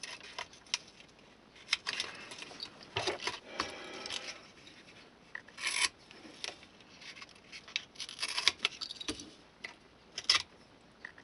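Masking tape being pressed and rubbed down inside a plastic HO-scale model gondola and trimmed at the corners with a hobby knife: short, separate bursts of scratchy rubbing and scraping.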